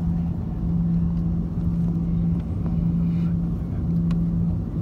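Cabin noise of an Airbus A340-300 taxiing, heard from inside: a steady low hum from its four CFM56-5C4 engines at taxi power, with a rumble beneath.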